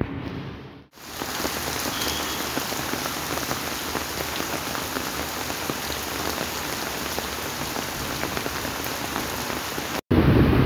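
Heavy rain falling in a storm, a dense, steady patter of drops that starts abruptly about a second in. Just before the end it cuts to a louder, deeper rushing noise.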